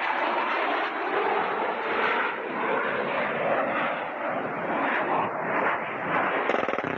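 Panavia Tornado jet in a low, fast pass, its twin RB199 turbofan engines making a loud, continuous jet noise that swells and eases slightly.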